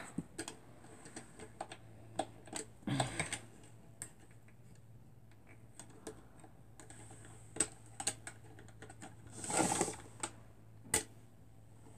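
Scattered light clicks and knocks of hands handling a small plastic sewing machine, turning it and working at its parts, with a short rustle just before ten seconds and a sharp click about eleven seconds in.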